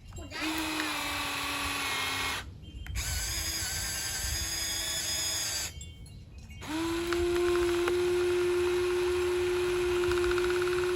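Toy RC excavator's small electric motors whining as it is worked, in three spells with two short pauses. The last spell, starting about two-thirds of the way in, is the loudest and steadiest.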